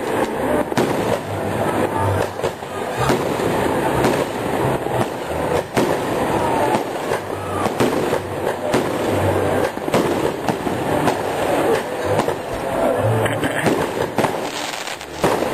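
New Year's Eve aerial fireworks: rockets and shells going off in a continuous barrage of bangs and dense crackling, with no let-up.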